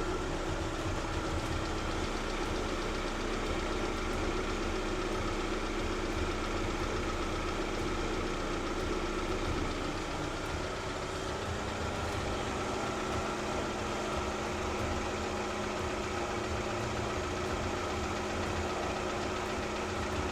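Lada Vesta petrol engine idling steadily while warming up, with a light tapping somewhere in the engine that the owner suspects is piston knock rather than the hydraulic lifters.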